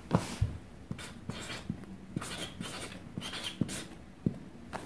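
Felt-tip marker writing on a cardboard shipping box: short scratchy strokes mixed with a few light taps and clicks.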